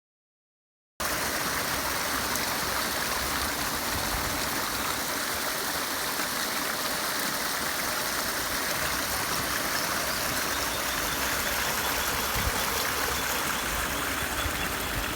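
Steady rush of heavy floodwater pouring into a full farm dam, starting abruptly about a second in after silence.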